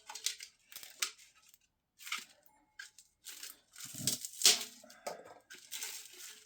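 Hand tools worked forcefully against the boiler's casing and charred insulation: irregular bursts of scraping with sharp clicks, loudest a little past the middle, with no motor running.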